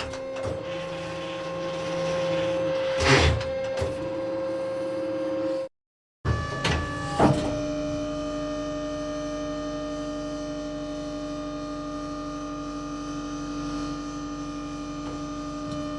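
Tank turret traverse drive running with a steady whine, with a clunk about three seconds in. The sound cuts out briefly near six seconds, then a second run starts with a short falling pitch and a clunk before settling into a steady whine.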